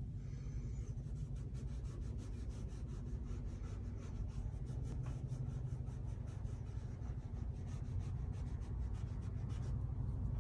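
Paintbrush dabbing and rubbing against a stretched canvas in quick, light strokes, about four to five a second, over a steady low room hum.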